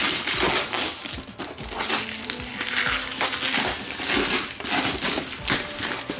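Bags and wrapping crinkling and rustling in irregular handfuls as toys are handled and pulled out of a storage tote.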